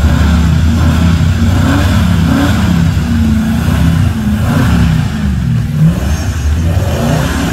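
Ford Bronco II's engine running under throttle, its pitch repeatedly rising and falling as the revs go up and down, with one brief louder surge about six seconds in.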